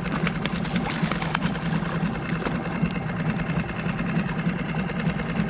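Small boat motor idling steadily. In the first second or so, water splashes and there are a few sharp knocks as a lingcod thrashes at the landing net beside the hull.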